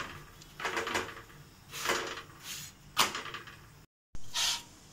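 Kitchen handling noises: a few brief scrapes and knocks from cookware and a plate, the sharpest knock about three seconds in, broken by a short dropout near the end.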